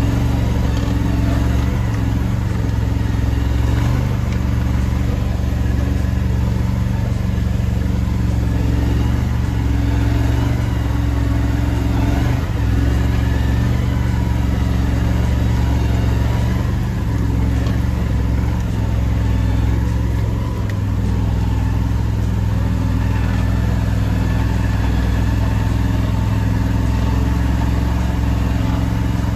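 Engine of a tracked Argo Frontier 8x8 amphibious ATV running steadily as it drives along a snowy trail, a constant low drone with no changes in speed.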